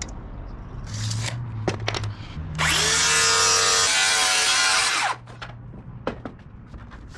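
Track saw (a circular saw on a guide rail) spinning up with a rising whine and cutting through a plywood sheet, then winding down after about two and a half seconds. A few light clicks and knocks of handling come before it.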